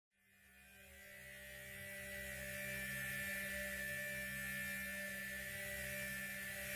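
A steady electric hum with a thin high tone above it, fading in over the first two seconds and then holding.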